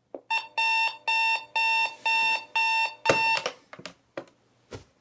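Electronic alarm clock beeping, a pitched beep about twice a second. About three seconds in a sharp knock is heard and the beeping stops, followed by a few fainter knocks.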